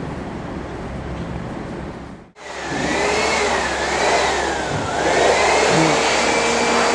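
Hand-held electric air blower running loud over a motorcycle, its motor whine wavering up and down in pitch as it is moved. For the first two seconds there is only a lower, rougher background noise.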